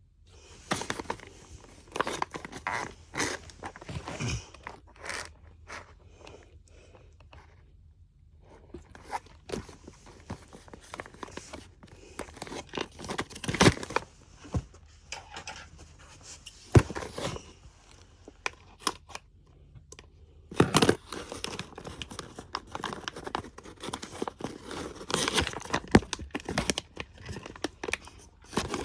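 Packaging being torn and crinkled open by hand: irregular tearing and rustling broken by scattered sharp clicks, with a few louder knocks.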